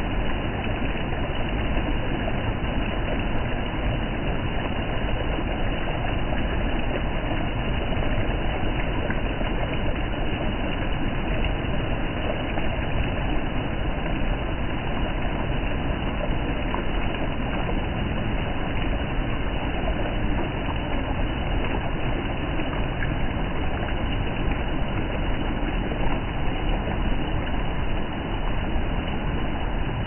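Small waterfall pouring over rock into a pool, heard close to the microphone: a loud, steady rushing of falling water that does not change.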